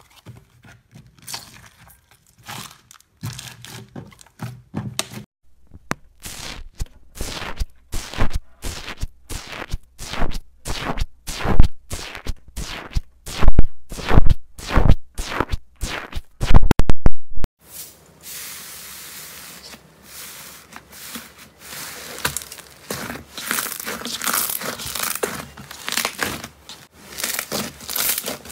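Slime being worked up close: after a few scattered clicks, a long run of sharp clicks and pops as a tool pokes holes in a foamy green slime. A little past halfway it cuts to steady crackling and crinkling as a blue fluffy slime is squeezed and stretched by hand.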